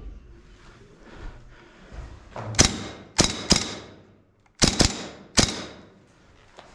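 Airsoft gun firing six single shots, sharp cracks in two quick groups of three about two seconds apart.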